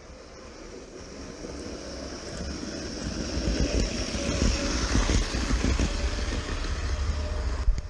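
Vintage Märklin ST 800 HO model train running along metal track, its motor hum and wheel clatter growing steadily louder as it approaches and passes close by.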